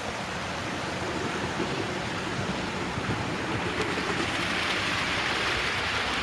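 00 gauge model trains running on the layout's track: a steady noise of wheels on the rails and running motors, growing louder from about four seconds in as a train passes close.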